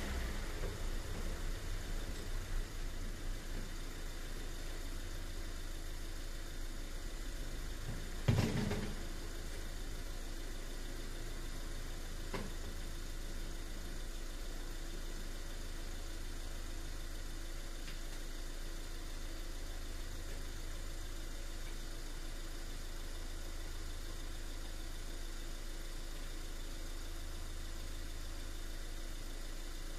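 An engine idling with a steady low hum. A single loud knock comes about eight seconds in, and a faint click a few seconds later.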